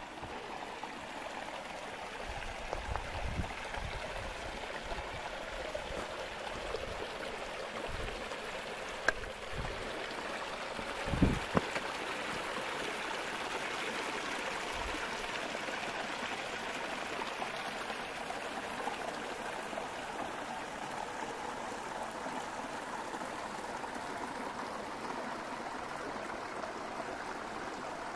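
Small mountain creek rushing and trickling over boulders in a steady wash of water noise. A few low thumps come in the first half, the loudest about eleven seconds in.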